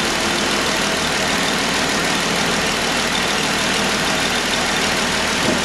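2015 Jeep Wrangler JK's 3.6-litre V6 idling steadily, left at idle so air can burp out of the freshly refilled cooling system.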